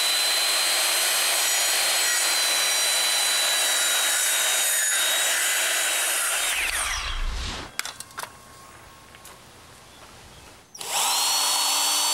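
Circular saw running through a wooden board in a crosscut for about seven seconds, with a steady high whine; the sound drops away as the cut ends and the blade winds down. After a quieter pause with a few clicks, a power drill starts up about eleven seconds in.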